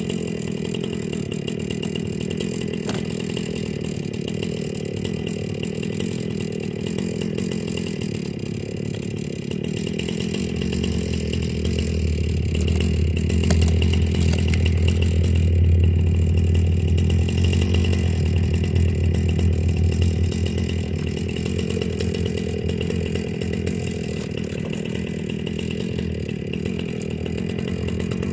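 Chainsaw running steadily while a log is cut into rounds, getting louder for about ten seconds in the middle.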